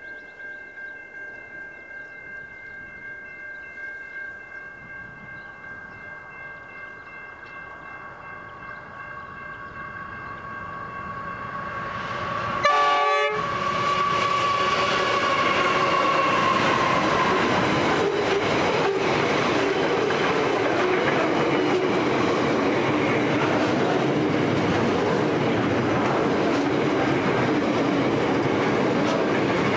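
A heavy freight train approaching and passing. First come steady high ringing tones that grow louder as it draws near. A little before halfway the two Pacific National NR class diesel-electric locomotives go by loudly with a falling whine. Then the loaded steel wagons roll past with a steady rumble and clickety-clack of wheels over rail joints.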